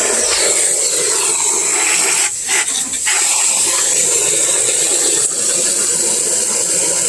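Water jetting from a hose into water: a steady, loud hissing rush that makes a rocket-jet sound. It dips briefly about two and a half seconds in.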